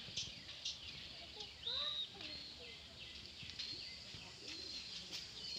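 Small birds chirping, short high calls repeating every fraction of a second, with a louder call about two seconds in.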